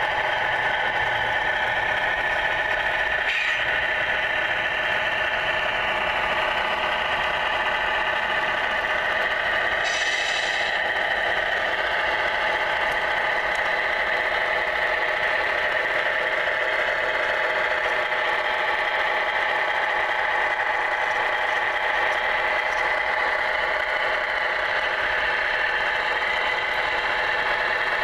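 Scale RC semi-truck's engine sound, a steady diesel-style idle from a small speaker, running without change. A short hiss about ten seconds in.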